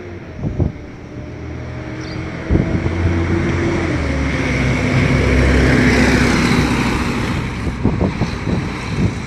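Temsa MD9LE city bus's Cummins ISBe six-cylinder diesel running with a holed exhaust as the bus drives past, getting much louder about two and a half seconds in and loudest around six seconds. A car passes close near the end.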